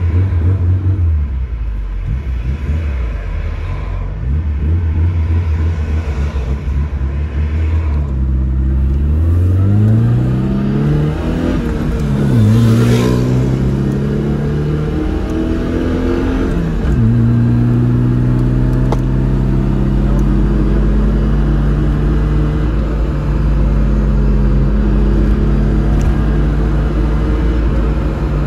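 Tofaş Doğan SLX engine heard from inside the cabin: it runs at low, even revs for several seconds, then the revs climb, dip and climb again as the car accelerates, and it settles into a steady, higher note for the last ten seconds or so.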